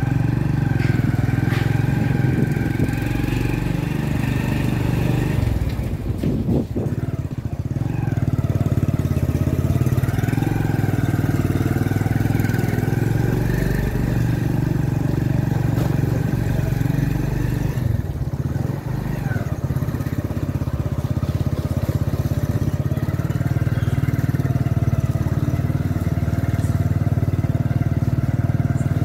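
Small two-wheeler engine running while being ridden, its pitch rising and falling with speed. It eases off briefly about six seconds in.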